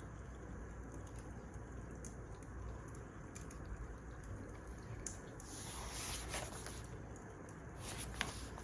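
Wood fire crackling with scattered small pops over a low steady rumble, a soft hissing rush about five to seven seconds in and a sharper pop near the end.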